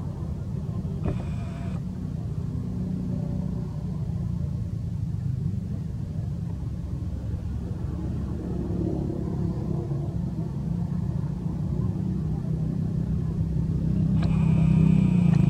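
Steady low rumble that grows louder near the end, with a brief high-pitched sound about a second in and another near the end.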